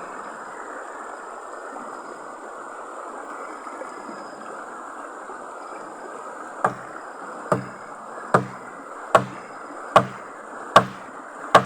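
Steady rushing noise, then seven sharp knocks about 0.8 s apart in the second half, the last one near the end.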